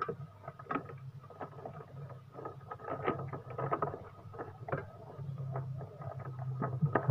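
Irregular light clicks, taps and knocks of parts being handled during a refrigerator repair, over a low steady hum.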